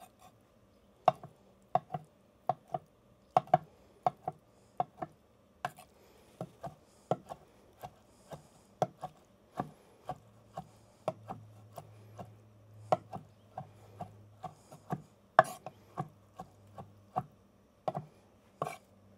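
Chef's knife chopping soft boiled brains on a wooden cutting board: a long run of sharp knocks, about two a second and unevenly spaced, as the blade strikes the wood.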